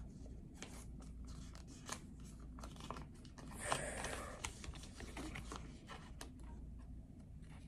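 Faint crinkling and tearing of a Pokémon card booster pack's foil wrapper as it is worked open by hand, with scattered small crackles and a louder rustle about halfway through.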